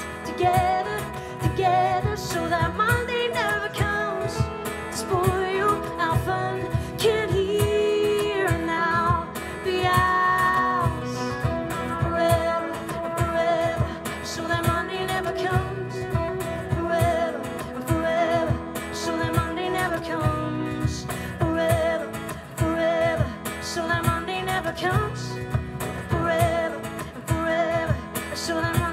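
A woman singing live over a steadily strummed acoustic guitar.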